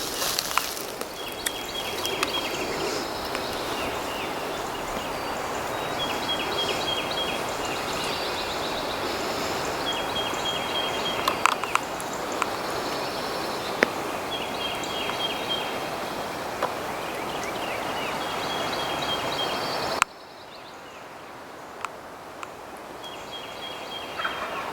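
Wild turkey gobbling six times, about every four seconds, over heavy wind noise on the microphone. The wind noise drops sharply near the end.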